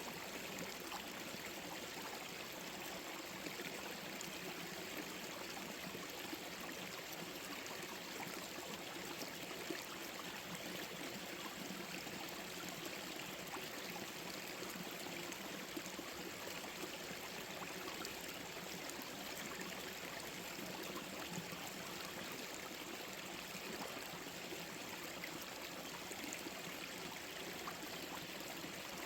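Small forest stream flowing over rocks, a steady rush of running water.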